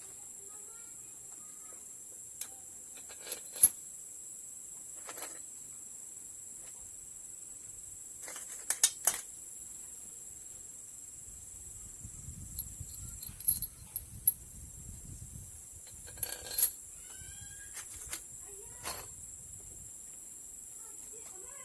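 Scattered sharp clinks and knocks of metal tools and engine parts being handled, several in quick clusters, over a steady high-pitched hiss.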